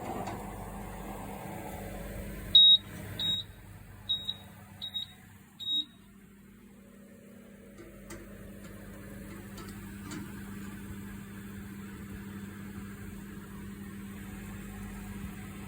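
Home oven's control panel beeping five times at uneven intervals as its buttons are pressed, then the oven running with a steady hum.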